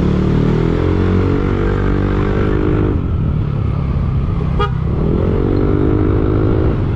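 Motorcycle engine pulling under way, its pitch climbing as it accelerates, breaking off about three seconds in as it shifts gear, then climbing again, over a steady low rumble of wind on the microphone. A brief horn toot sounds about four and a half seconds in.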